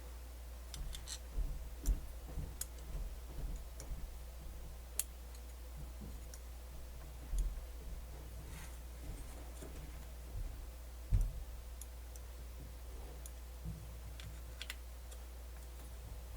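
Scattered small clicks and light knocks as the parts of a cassette deck's tape mechanism are handled and fitted together, with a sharper knock about 11 seconds in, over a steady low hum.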